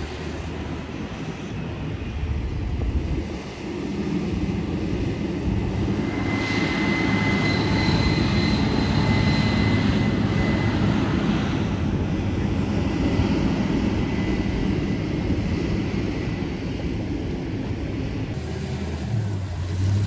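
An engine running steadily, with a faint high whine for several seconds starting about six seconds in.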